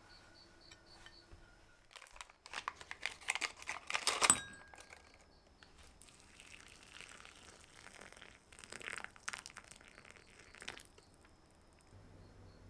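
Crinkling and tearing of packaging for about two seconds, loudest at the end. Then hot water pouring from an electric kettle into a ceramic soup cup for several seconds.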